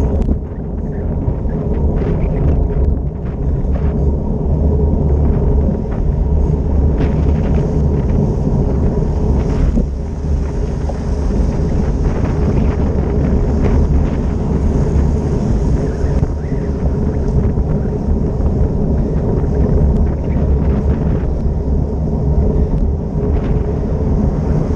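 Steady wind rumble on a bicycle's handlebar-camera microphone while riding, with the hiss of tyres and traffic on a wet road and a few short knocks.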